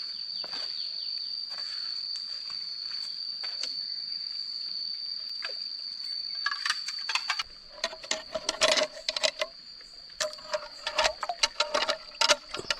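A steady high insect trill through the first half, stopping about seven seconds in. Over it, and then on its own, comes a quick run of sharp clinks and knocks, many with a short ring.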